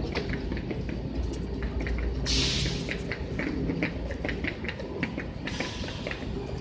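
Washington Metro train at the platform: a steady low rumble with regular ticking about four times a second. A short burst of air hiss comes about two seconds in, and a longer hiss starts near the end.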